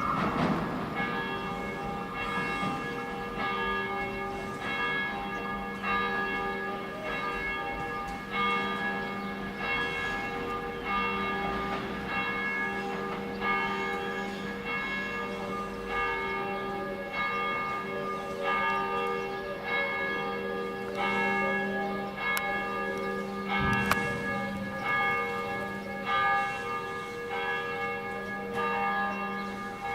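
Church bells ringing a continuous peal, struck about once a second. The notes of several pitches overlap and ring on.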